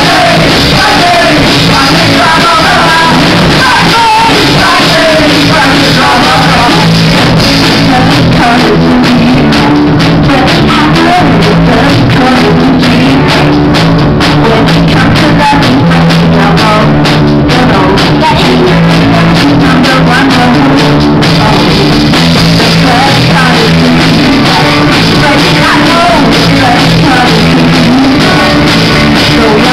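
Live rock band playing loud: electric guitars, bass guitar and drum kit, with lead vocals sung into the microphone.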